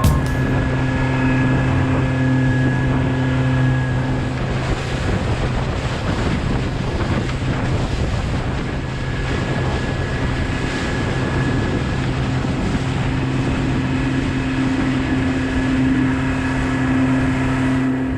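Motorboat under way in a choppy sea: a steady engine drone with water rushing along the hull and wind buffeting the microphone. The engine tone sinks under the wind and water for a few seconds midway, then comes back.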